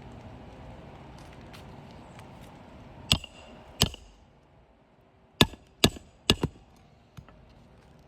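Hammer striking roofing nails to fasten the corners of a replacement asphalt shingle: two sharp strikes, then a quick run of four.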